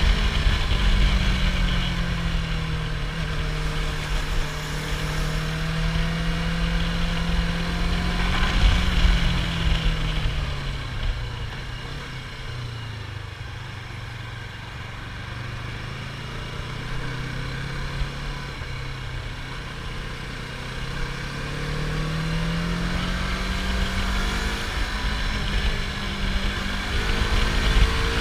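Yamaha R25's parallel-twin engine running through its stock exhaust. The engine note sinks slowly over several seconds, holds lower and quieter for a while, then climbs again near the end.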